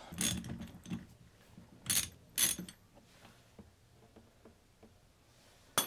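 Hand ratchet wrench working a hex plug loose on the impact wrench's gearbox housing: a few sharp metallic clicks and knocks of the socket and tool on steel, then faint pawl ticks as the handle is swung back, and one last sharp click near the end.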